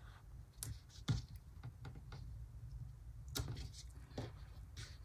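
A handful of faint, light taps and clicks from paper planner supplies being handled on a desk, the sharpest about a second in, over a steady faint low hum.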